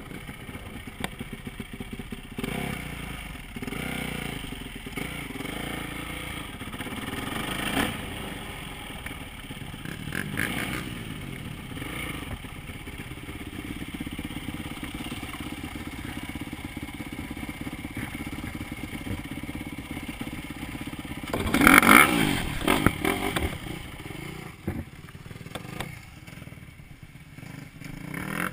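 Dirt bike engine running and revving up and down while riding slowly over gravel, with a loud burst of revs about three quarters of the way through, then dropping to a quieter idle near the end.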